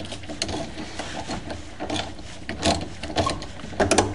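Hand ratchet wrench clicking in uneven strokes as it works the 14 mm bolt off the rear sway bar end link, with a couple of sharper metal clicks near the end.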